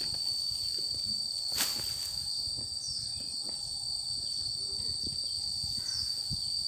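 Insects droning outdoors in a steady high-pitched tone, with a single sharp click about one and a half seconds in.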